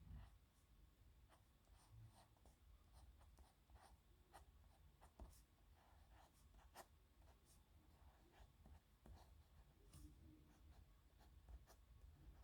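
Faint scratching of a nib pen on paper, a run of short irregular strokes as letters are written by hand.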